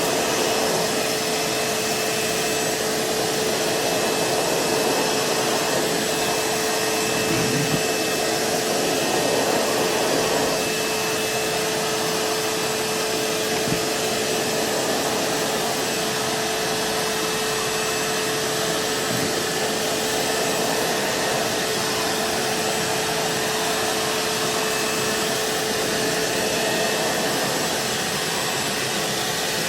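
Vacuum cleaner running steadily, its motor holding one constant whining tone over a rush of airflow, growing a little louder for a few seconds about a third of the way in.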